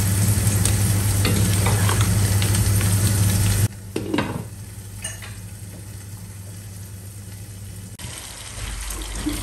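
Chicken pieces in thick masala sizzling and frying in a pot as a wooden spatula stirs and scrapes through them. Over a third of the way in the sound drops sharply as a glass lid goes on with a couple of light knocks, leaving a softer, muffled sizzle.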